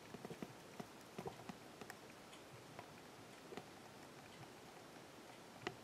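Near-silent room tone: a steady faint hiss with scattered small, irregular clicks, the sharpest one near the end.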